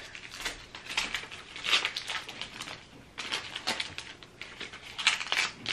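Plastic wrapping crinkling and rustling as it is pulled off a Disney pin by hand, in quick irregular crackles.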